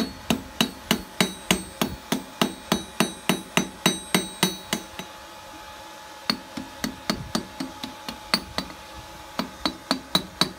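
Blacksmith's hand hammer striking a red-hot steel ring on the anvil and its horn, about three sharp blows a second, each with a short metallic ring. The hammering pauses briefly about five seconds in and again about eight and a half seconds in, then resumes. The blows are shaping and enlarging the bottle opener's ring on the horn.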